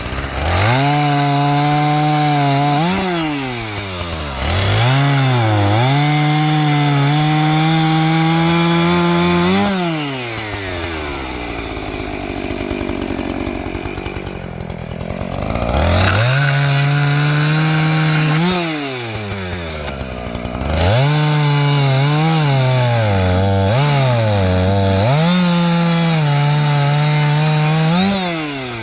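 Two-stroke chainsaw cutting through dead Japanese raisin tree logs. It is held at full throttle through each cut and drops back in revs between cuts, several times, with a longer slowdown toward idle in the middle.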